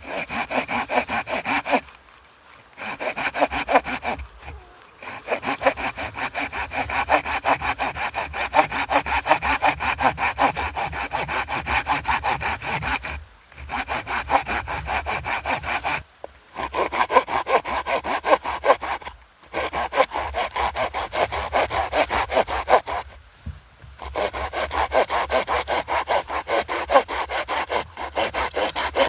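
Hand saw cutting through wood in rapid back-and-forth strokes, in runs of several seconds broken by brief pauses.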